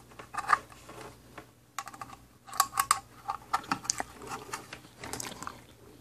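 Test-lead plugs and leads clicking and clattering against a plastic resistance standard box as they are pushed into its sockets, in several quick runs of small sharp clicks.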